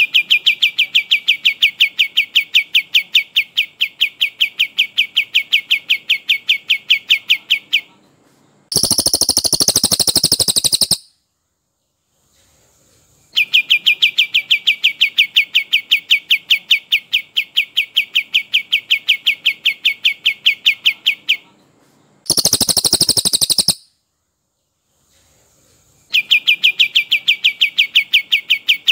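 Recorded birdsong: a cililin's long, even rolling trill of rapid repeated notes, each run lasting about eight seconds, alternating with a shorter, higher, harsher two-second burst from a kapas tembak. The sequence goes trill, burst, trill, burst, trill, with short silent gaps between them.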